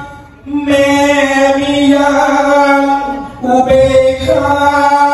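One voice singing slow, long-held melodic notes in a chant-like style, pausing briefly for breath about half a second in and again past the middle.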